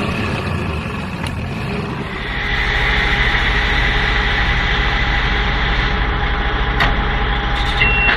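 An engine running steadily, with a rapid even pulsing in the low end and a hiss that swells about two seconds in.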